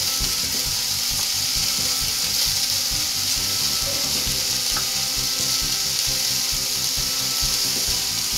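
Pointed gourd, potato and ginger paste frying in hot oil in a pan, a steady sizzle, with an irregular low rattle underneath.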